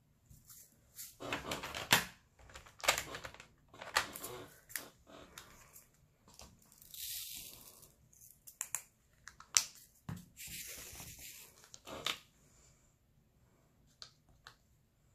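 Plastic rustling and crinkling with sharp clicks from handling diamond-painting supplies (the drill tray, bags of resin drills and the canvas's plastic film), in several irregular bursts that thin out to a few faint ticks near the end.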